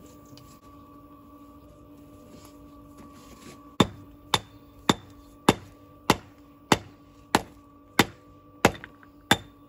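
Hammer striking stone, shaping walling stone: about ten sharp, ringing blows a little over half a second apart, starting about four seconds in.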